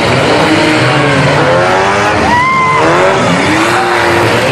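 Engines of several demolition derby cars revving hard at once, their pitches rising and falling over each other in a loud, steady din.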